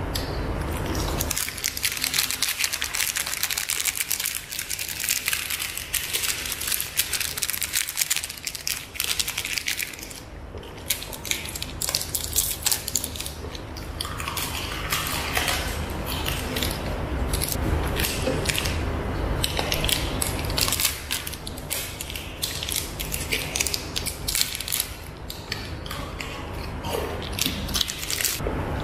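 Close-up crunching and chewing of peanut and sesame brittle bars, with thin plastic sweet wrappers crinkling as bars are unwrapped near the end.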